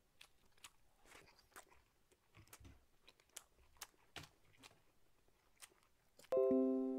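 Faint wet chewing and mouth clicks of a man eating a skewered fish cake (eomuk). About six seconds in, a single loud ringing musical note sounds and slowly fades.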